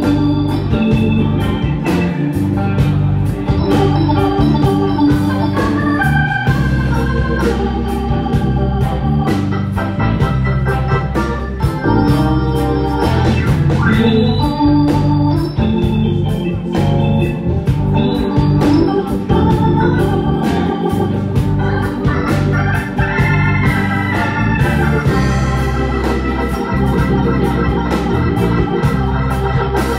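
Live electric band playing, with Hammond organ chords prominent over electric bass, electric guitar and a steady drum beat.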